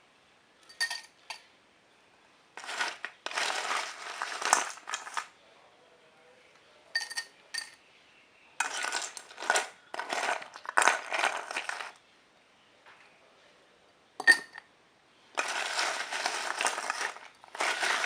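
Ice and utensils clinking and rattling in a drinking glass as an iced drink is assembled: a few short ringing clinks, and longer stretches of rattling about a second or two each, with quiet pauses between.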